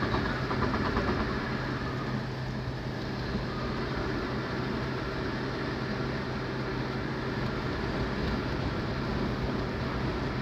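Steady engine and tyre hum of a car driving at highway speed, heard from inside the cabin.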